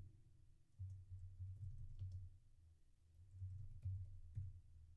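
Faint typing on a computer keyboard: a few scattered key clicks over dull low knocks that come in short patches.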